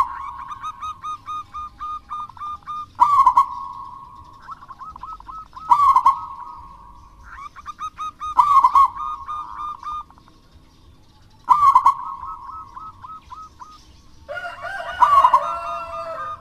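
Zebra dove (perkutut) singing its cooing song over and over, a phrase about every three seconds. Each phrase is a loud opening note followed by a quick run of short, even coos. Near the end another bird's call, with sliding notes, overlaps it.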